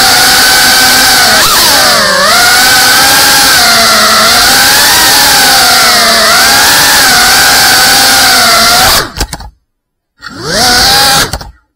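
Small FPV drone's brushless motors and propellers whining loud and high, the pitch wavering up and down with the throttle. About nine seconds in the sound cuts off abruptly, returns for about a second with a rising whine, then cuts off again.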